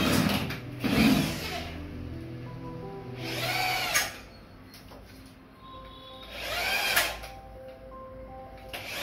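Corded electric drill run in several short bursts into a tiled kitchen wall, each burst speeding up with a rising whine, to fix a wall-chimney mounting bracket. Background music plays under it.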